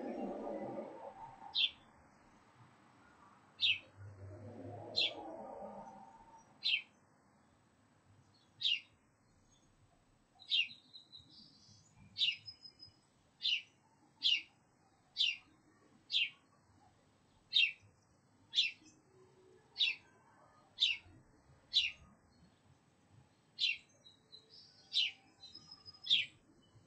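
A songbird calling with short, sharp chirps repeated about once a second, some twenty in all. A low rumble sounds underneath during the first few seconds.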